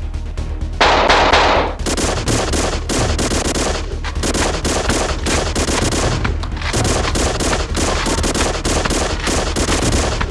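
Rapid automatic gunfire, a long unbroken run of shots, with a louder blast about a second in.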